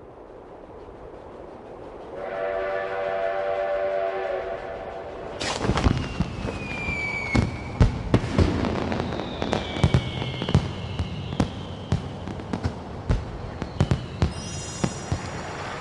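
A steam train whistle blows steadily for about three seconds. Then a string of fireworks bursts and pops follows, with a few falling whistles among them. Near the end comes a high ringing shimmer.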